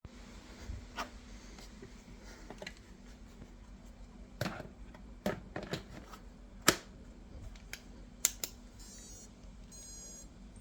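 Scattered sharp clicks and knocks over a faint steady hum, with about half a dozen louder knocks in the middle and a short faint run of even ticks near the end.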